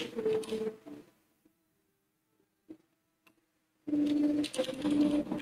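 Computer keyboard typing, stopping for about three seconds of near silence in the middle and starting again near the end.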